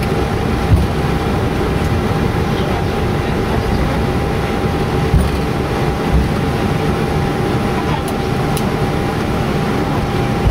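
Airbus A321 cockpit noise while taxiing at night: a steady rumble and hum with a constant whine, broken by a few dull thumps from the wheels rolling over the taxiway.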